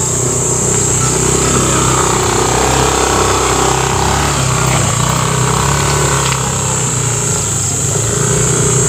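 Motor scooter engine running steadily while riding, its pitch rising and falling a little, under a steady high-pitched hiss.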